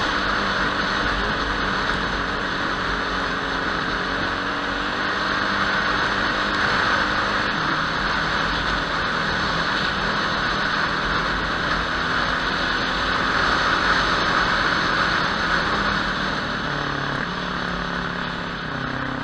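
Motorcycle engine running at low road speed, its pitch stepping down a couple of times and rising again near the end as the throttle changes, under a steady rushing hiss.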